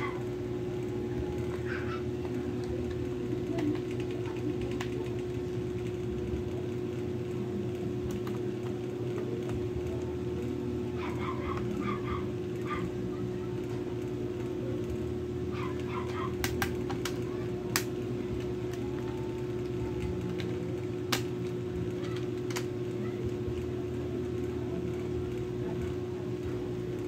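A few sharp plastic clicks from a laptop's battery latch being slid and its battery pack being pulled out, over a steady background hum.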